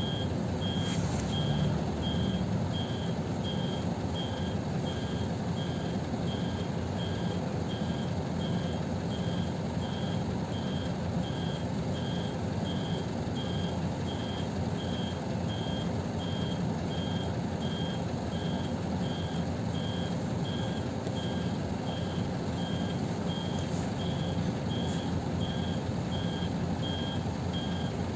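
Steady electronic warning beep, repeating about one and a half times a second, over the low rumble of a city bus's engine idling in the cabin.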